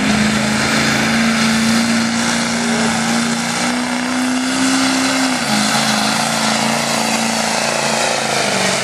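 Diesel pickup truck engine at full throttle, pulling a weight-transfer sled. The engine note holds high, then drops a step a little past halfway as the sled's load builds.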